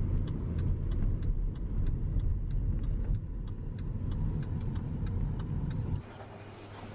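Steady low vehicle rumble with an even light ticking about two and a half times a second; the rumble drops away sharply near the end.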